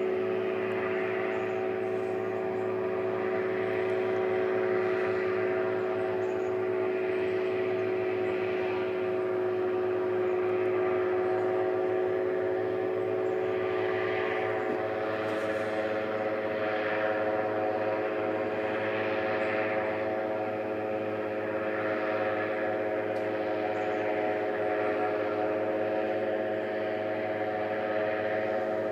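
Airboat's engine and propeller running steadily at a constant drone; the engine note shifts slightly about halfway through.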